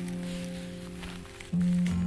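Background music: an acoustic guitar chord that fades away, then a fresh strum about one and a half seconds in.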